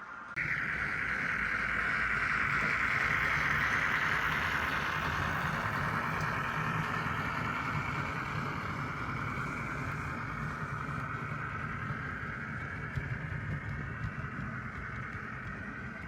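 HO-scale Bachmann Mavis model diesel shunter running on track with a LokSound 5 sound decoder: a steady diesel engine sound from its small speaker, together with the model's running noise. It sets in abruptly about half a second in and grows slowly quieter over the following seconds.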